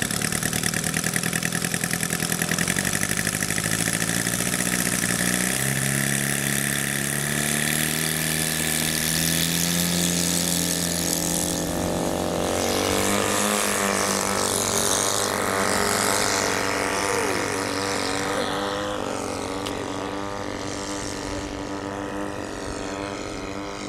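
Engine and propeller of a radio-controlled scale Piper Cub model throttling up for takeoff. It steps up in pitch a few seconds in and runs at full power through the middle, then fades as the plane climbs away.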